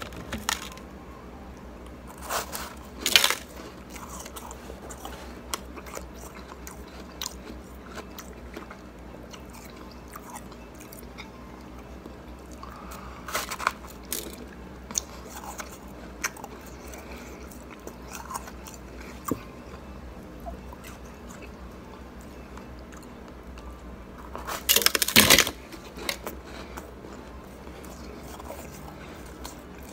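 Cubes of shaved ice being bitten and chewed: crisp, irregular crunches scattered through, with a few louder bursts of crunching, the loudest toward the end.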